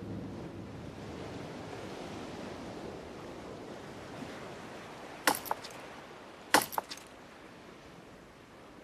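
Sea waves washing on a shore, a steady hiss that slowly fades, with two short sharp sounds about five and six and a half seconds in.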